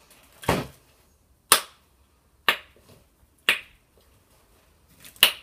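Mouth smacks and clicks from chewing a crumbly filled chocolate: five short, sharp smacks, most of them about a second apart.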